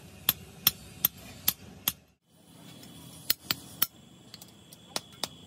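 Hand hammer striking a leaf-spring steel billhook blank on a small block anvil: sharp metallic blows, about two to three a second. The hammering breaks off for a moment about two seconds in, then resumes, with a faint ring after the later strikes.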